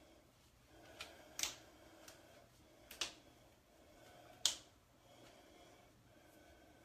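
Several sharp clicks or taps a second or so apart, the loudest about two-thirds of the way in, over faint room noise.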